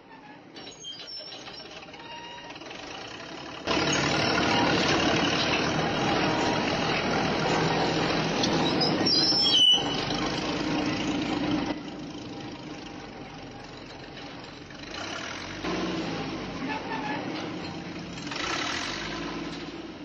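Bulldozer's diesel engine running, becoming much louder for several seconds and easing off again, with one sudden sharp sound about ten seconds in. It swells twice more near the end.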